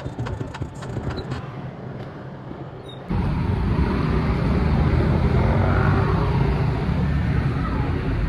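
Street traffic on a wet road, with cars and motor scooters passing and a heavy low rumble. It cuts in abruptly about three seconds in, after a quieter stretch with rapid clicking that fades out.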